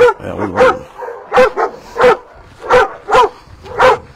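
Dog barking over and over, short sharp barks coming about every two-thirds of a second in a steady rhythm.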